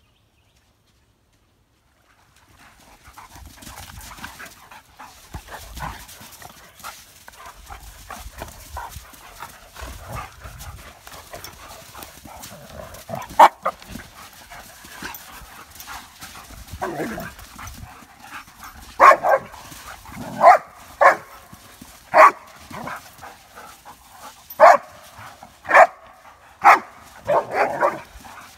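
A Doberman and two Dogo Argentinos play-fighting: paws scuffling in the sand, then, in the second half, a run of about ten short, sharp play barks roughly a second apart.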